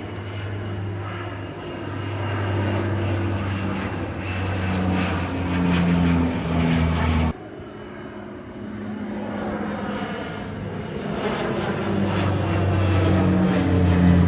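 Propeller airplane engine droning, shifting in pitch and growing louder as it passes. It cuts off sharply about seven seconds in, then builds again to its loudest near the end.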